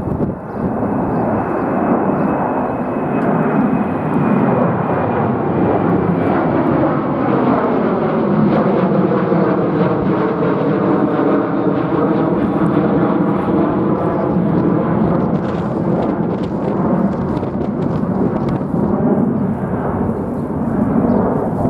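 Jet airliner flying low overhead: a loud, steady engine roar with a faint high whine that slowly drops in pitch, the sound sweeping and swirling as the plane passes.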